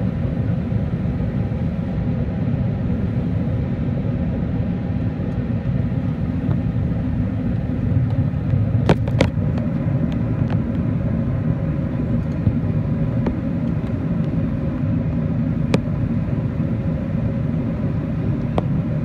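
Airbus A380 cabin noise on approach: a steady low rumble of the engines and airflow heard inside the passenger cabin. A few faint clicks come through about halfway through and again near the end.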